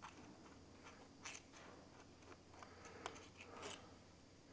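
Near silence, with a few faint metal clicks as a spanner and small parts of a hydraulic gear pump are handled.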